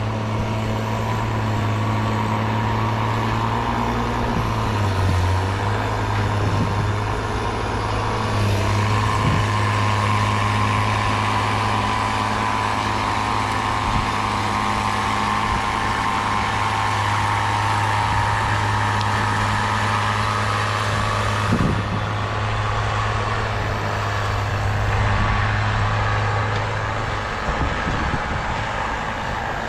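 Cat 318B excavator's diesel engine running steadily, with a higher whine that swells from about 9 seconds in and cuts off suddenly around 22 seconds, along with a few scattered knocks.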